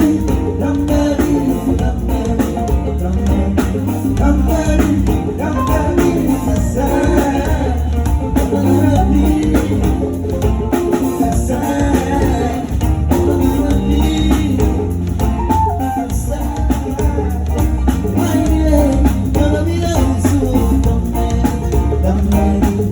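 Live band playing music with a steady beat, with drums and a strong bass line.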